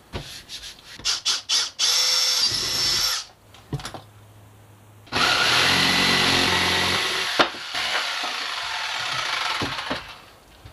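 Handheld jigsaw cutting a rectangular opening in a wooden panel, running steadily for about five seconds from about halfway in. Before it come a few short clicks and a brief loud rasp.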